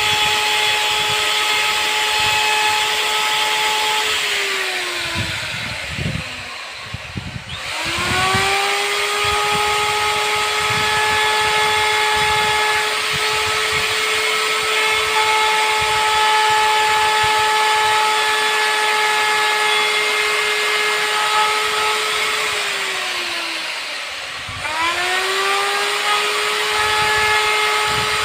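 Handheld CNC router's spindle running with a steady high whine, winding down and dying away about four seconds in, then spinning back up at about eight seconds. It winds down again a little after twenty seconds and spins back up shortly before the end.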